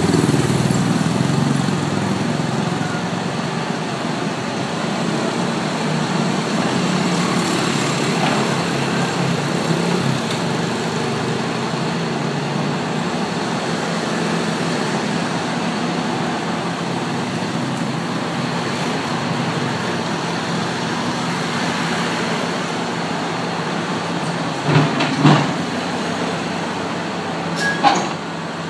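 Diesel engine of an excavator running steadily while it is loaded onto a truck, with a few sharp knocks near the end.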